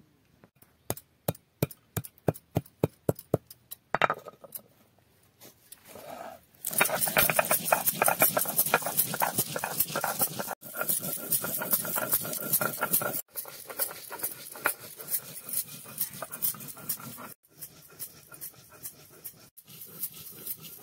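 Garlic and whole spices being crushed and ground on a flat grinding stone (sil-batta) with a stone roller. First comes a run of sharp knocks, about three or four a second, as the seeds and cloves are cracked. Then comes a dense gritty rubbing of stone on stone as they are ground to a paste.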